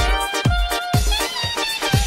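Music: a steady kick drum beating about twice a second under a held melody line.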